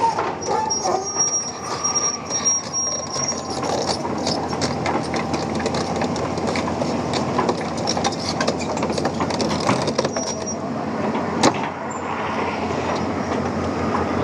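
Excavator working: a steady engine and machinery din with many scattered metallic clanks, a thin high squeal that comes and goes during the first ten seconds, and one sharp bang about eleven seconds in.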